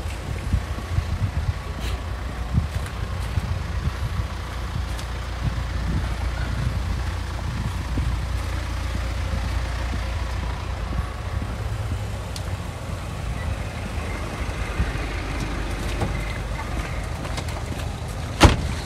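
A steady low rumble of a motor vehicle running, with scattered light clicks and one sharp knock near the end.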